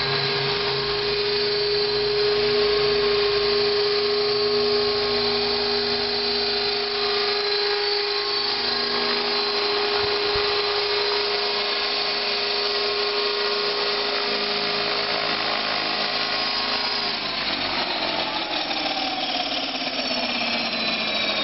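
Electric T-Rex 600 RC helicopter in a scale MD 500 fuselage: steady high whine of its motor and rotors in flight. About three-quarters of the way through the pitch starts falling as it spools down after settling on its landing pad.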